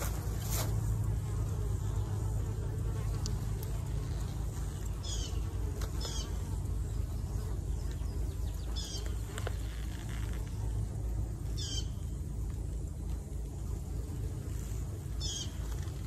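Honeybees buzzing in a steady low hum. A bird repeats a short, high, falling call about five times.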